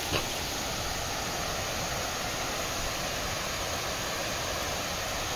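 Steady, even rushing hiss with no distinct events, apart from a faint tick just after the start.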